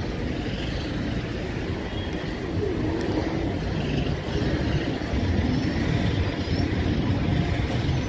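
Busy city street traffic: cars, taxis and buses running past, heard as a steady low rumble of engines and tyres.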